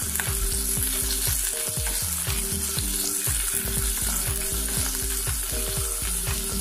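Sliced onions sizzling in olive oil in a stainless steel pot, with a steady hiss. A wooden spatula stirs them, knocking and scraping against the pot.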